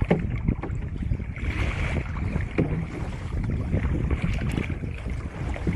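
Wind buffeting the microphone with choppy sea water slapping against a kayak hull, as a rough, irregular low rumble.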